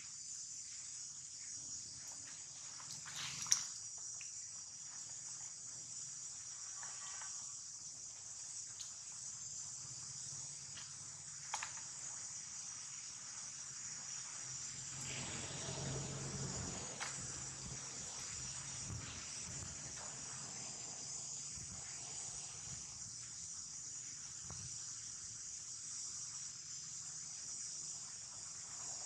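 Steady, high-pitched chorus of insects droning without a break, with a few faint clicks and a soft, low rustle about halfway through.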